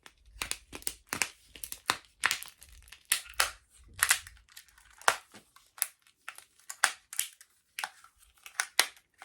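Plastic candy packaging being cracked open and handled: crinkling with many irregular sharp clicks and cracks.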